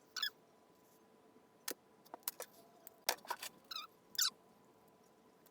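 Small handling sounds: scattered light clicks and taps with a few short squeaks, over a faint steady hum.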